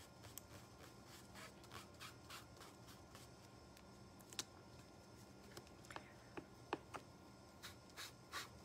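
Faint dabbing and rubbing of a small ink sponge on card stock through a paper stencil, in a run of light, even strokes, with a few sharper light taps in the second half.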